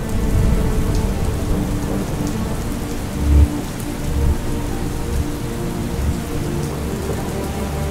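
Thunderstorm: steady heavy rain with rolling thunder, the loudest rumble about three seconds in.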